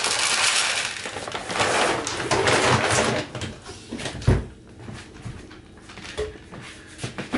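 Dry cat food kibble pouring out of a bag into a plastic bowl, a dense rattle lasting about three seconds, then a cat crunching the kibble in scattered clicks. A dull thump about four seconds in.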